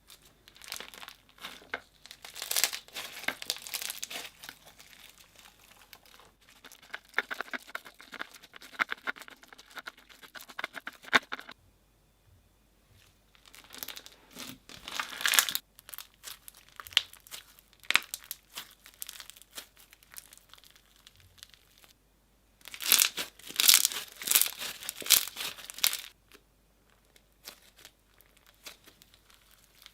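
Slime being squished and kneaded by hand, crackling and popping with small clicks in bouts of a few seconds, with short pauses between.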